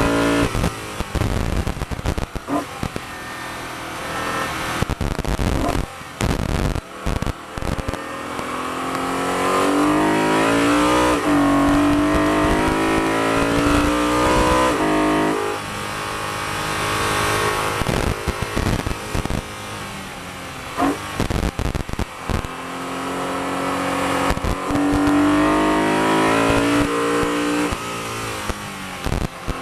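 BMW E92 M3's 4.0-litre V8 running hard at high revs, its pitch climbing under acceleration and falling away as the car slows, again and again. The sound dips briefly many times.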